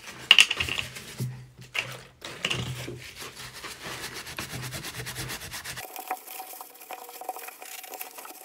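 Tissue and paper masking rubbing and crinkling against a taped-up chainsaw part as it is wiped down with acetone before painting, in a run of scratchy wiping strokes.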